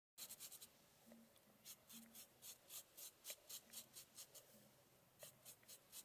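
Paintbrush strokes dabbing black paint onto a rough clay surface: a quick run of short scratchy brush strokes, about three or four a second.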